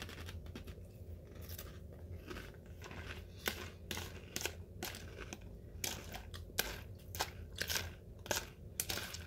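A person chewing a mouthful of crunchy Froot Loops Birthday Cake cereal: a steady run of sharp crunches, about two to three a second.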